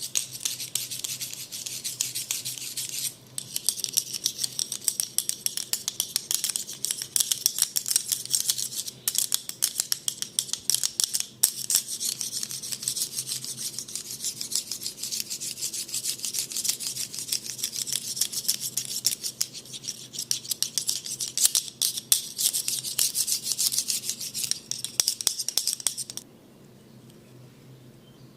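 Rapid, dense scratching and rubbing through the hair and over the scalp during a head massage, stopping about 26 seconds in.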